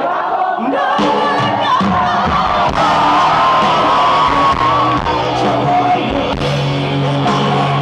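Live rock music: a band playing with singing over it and crowd noise mixed in, fuller from about a second in.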